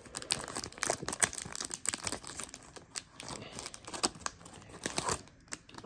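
Shiny foil wrapper of a sealed Leaf baseball card pack crinkling and tearing as it is ripped open by hand and the cards are pulled out: irregular crackles that die away near the end.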